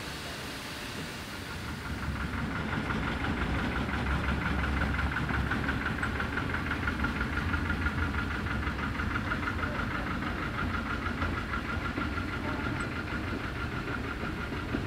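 Small narrow-gauge diesel locomotive engine running steadily as it moves coaches, growing louder about two seconds in.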